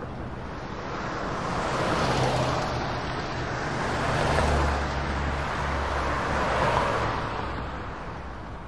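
GO Transit commuter train running, heard from inside the coach: a steady low rumble under a wash of wheel and rail noise that swells and eases three times, then dies down near the end.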